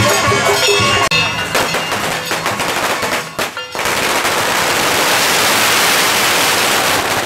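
A long string of firecrackers going off: scattered sharp pops that thicken over the first few seconds into a dense, continuous rapid crackle about halfway through, which cuts off suddenly near the end.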